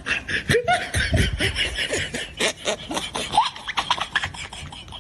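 Laughter, choppy and continuous, with a few short rising vocal squeals.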